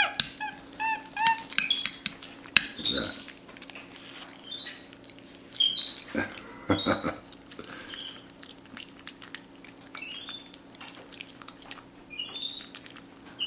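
Capuchin monkey eating spaghetti: short, high-pitched chirping squeaks that rise and fall, scattered through, mixed with wet lip-smacking and chewing clicks.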